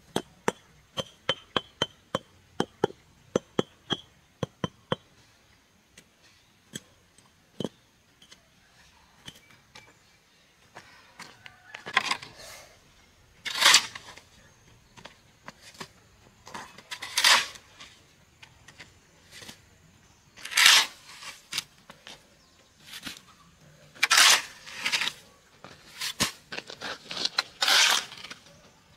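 Repeated hand-tool strikes: a run of light, quick taps about two a second for the first several seconds, then louder, longer strikes every second or two.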